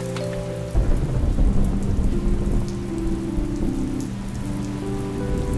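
Steady rain hissing, with a low roll of thunder that breaks in suddenly about a second in and slowly fades.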